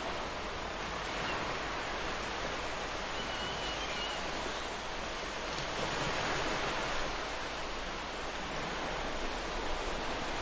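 Ocean surf breaking and washing up a beach: a steady wash of wave noise that swells a little about six seconds in.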